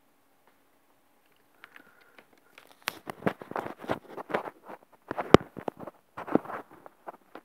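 Close rustling, scuffling and crackling with sharp knocks, as a cat's body brushes and bumps against the phone recording it. It starts after a quiet couple of seconds, and the two loudest knocks come about three seconds and five and a half seconds in.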